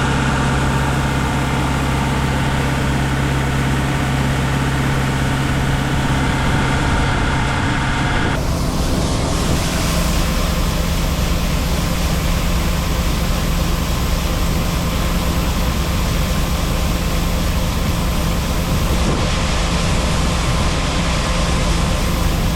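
Heavy farm machinery engines running steadily, with no change in speed. About eight seconds in there is an abrupt switch to a different, slightly higher engine drone.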